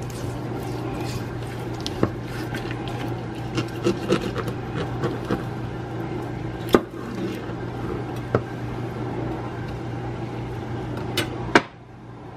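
A steady low hum with scattered sharp clicks and knocks; the sound cuts off abruptly near the end.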